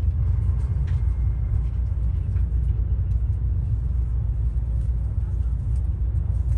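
Steady low rumble of a passenger train heard from inside the carriage, with a few faint clicks.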